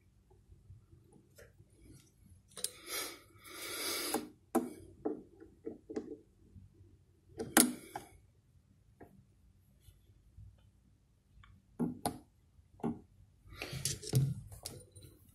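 Scattered clicks, taps and short rustling scrapes of small screwdrivers and a turntable tonearm being handled while the arm's bearing adjustment screws are set and the arm is swung to check for play. The loudest is one sharp click about seven and a half seconds in.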